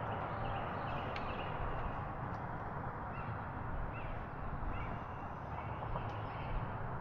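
Steady outdoor background noise with faint, scattered bird calls.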